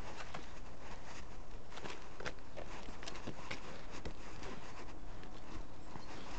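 Dog moving about with a camera strapped to its body: irregular light taps and scuffs of paws on concrete and rustling against the camera, over a steady low rumble.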